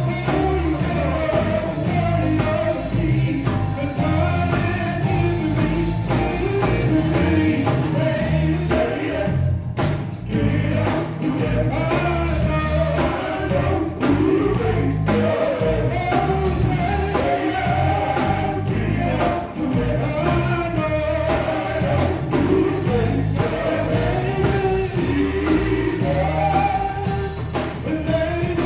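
Live gospel music: a male vocal group sings into microphones, backed by a band of keyboard, drums and electric guitars.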